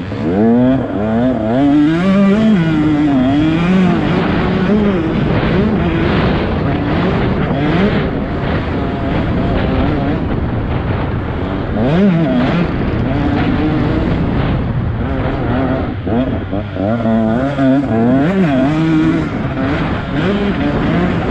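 Motocross bike engine ridden hard, its pitch rising and falling over and over as the throttle is opened and closed, with a sharp rev about halfway through.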